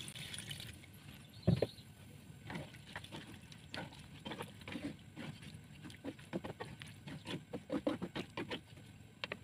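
Water pouring into a stone-coated wok of coconut-milk vegetable stew, stopping within the first second. A single thump follows, then a ladle stirring the stew, with irregular clacks and knocks against the wok and sloshing liquid.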